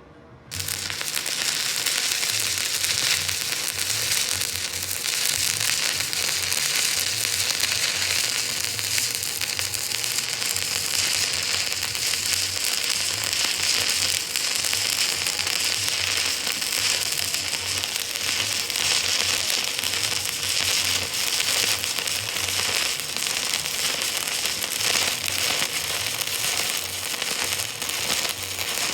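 Stick-welding (arc welding) arc crackling steadily while a bead is run on angle iron. It strikes suddenly about half a second in.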